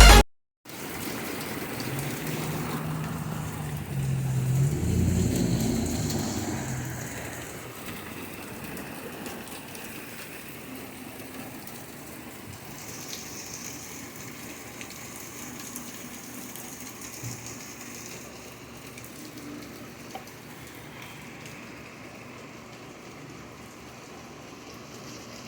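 Steady rain falling, an even hiss. A louder low rumble swells between about two and seven seconds in, then fades back into the rain.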